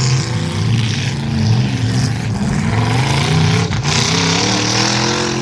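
Several demolition derby cars' engines running and revving at once, their pitch rising and falling as the cars drive and ram.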